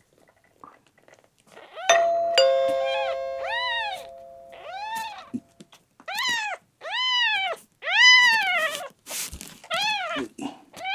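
A 10-day-old newborn kitten crying repeatedly while being given an olive-oil enema, about eight loud cries that each rise and fall in pitch, coming faster in the second half. Under the first cries a two-note ding-dong chime sounds, a higher note then a lower one, held for a few seconds.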